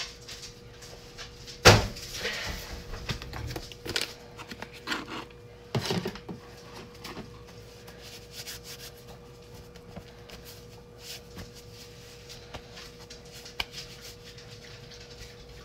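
Household handling noises: a sharp knock about two seconds in and a second thump near six seconds, then scattered small clicks and faint rubbing. A steady faint hum runs underneath.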